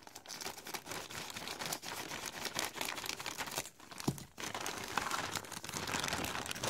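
Scissors cutting open a white plastic mailing bag, with crinkling as the bag is handled and pulled apart.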